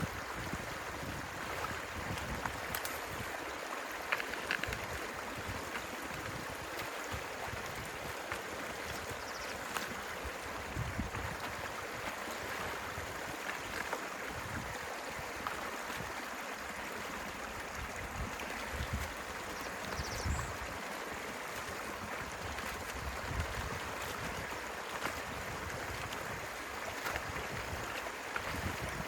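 Stream water running steadily, with scattered short low thuds.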